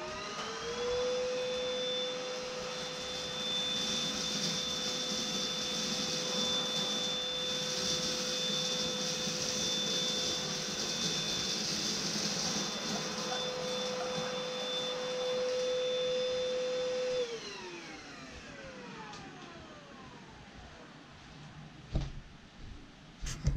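Dibea ST1601 cordless stick vacuum running, its motor spinning up to a steady high whine over a rushing airflow and brush noise as the cleaning head is pushed back and forth through a pile of dirt. About seventeen seconds in it is switched off and the whine falls away as the motor winds down, followed by a couple of light knocks near the end.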